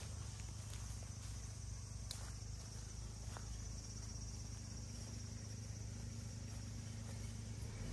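Insects trilling steadily in a high, even band over the low, steady hum of a Suzuki Jimny's engine crawling slowly through brush, with a few faint ticks.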